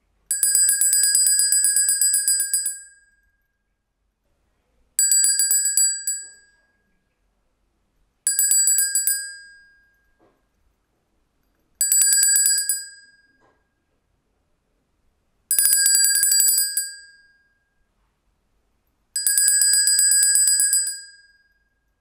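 Small metal handbell shaken rapidly, its clapper striking many times a second in a high, bright ringing. It rings in six bursts of about two seconds each, every burst dying away as the ringing fades.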